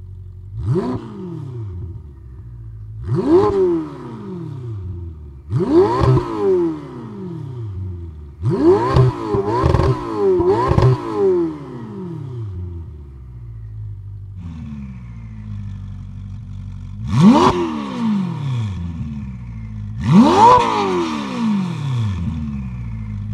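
Ferrari 488 Pista's twin-turbo V8 idling at a standstill and revved in quick blips that rise sharply and fall back: six blips on the stock exhaust, three of them close together near the middle. After a cut about 14.5 s in, it idles, then revs twice more on Fabspeed sport catalytic converters and a Valvetronic dual-tone exhaust.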